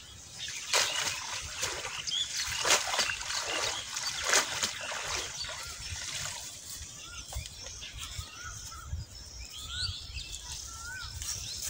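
Water splashing and trickling as a wet cast net is hauled out of a canal, with several separate splashes in the first half. In the second half a small bird chirps repeatedly with short rising-and-falling notes.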